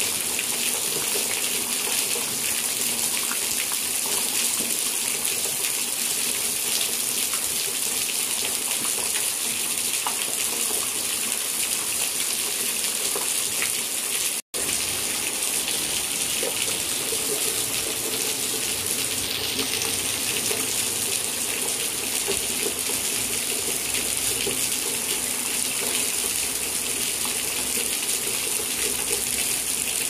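Steady rain falling, an even continuous hiss. It cuts out for an instant about halfway through, then carries on unchanged.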